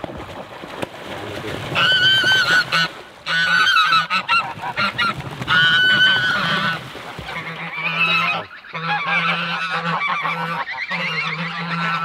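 A flock of domestic geese honking loudly and repeatedly, the calls starting about two seconds in, with the birds splashing and flapping their wings on the water.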